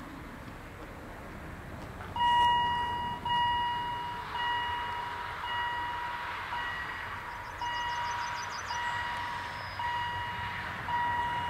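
Level-crossing warning bell starting about two seconds in: one ringing tone about every second, each struck sharply and fading away. It signals that a train is approaching and the barriers are about to lower.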